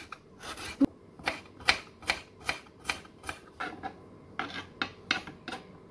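Kitchen knife chopping on a cutting board, slicing seasoning ingredients in a steady rhythm of about two to three cuts a second.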